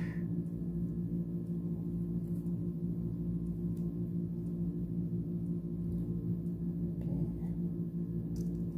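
A steady low hum of several held tones, with a few faint light ticks.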